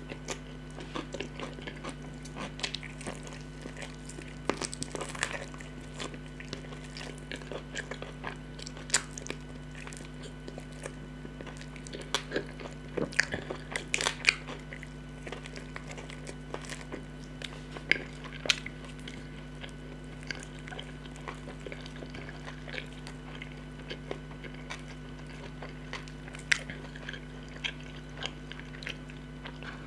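Close-up eating sounds: a person biting and chewing chicken with wet mouth clicks and crunches in scattered clusters, the sharpest about halfway through. A steady low hum runs underneath.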